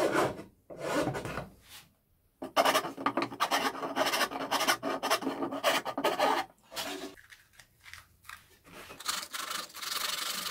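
Hand file rasping across the end grain of a pine board in push strokes: a few separate strokes, then a quick run of them. After a short pause, a lighter, steadier rubbing on the wood starts near the end.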